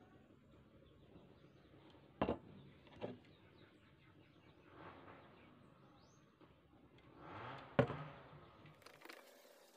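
A few sharp knocks, two close together early on and a louder one late, with short soft hissing swells between them, over a faint outdoor background.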